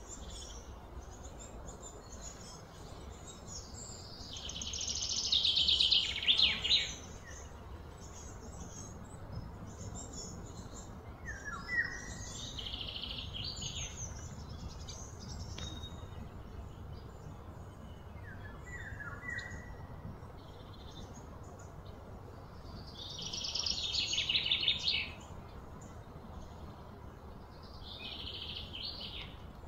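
Birds calling: short chirps and bursts of rapid trilling high up, the two loudest swelling for about two seconds each, about a fifth of the way in and again about four fifths in. Under them is a steady low background rumble.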